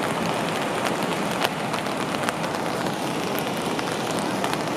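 Steady rushing of the Great Falls of the Potomac River, whitewater pouring over the rock ledges and churning through the rapids below, with a few faint clicks.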